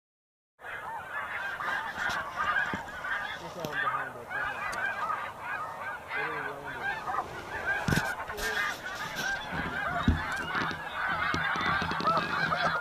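A large flock of snow geese calling overhead: a dense, unbroken chorus of many overlapping high-pitched honks. It begins about half a second in, with a couple of sharp knocks around the middle.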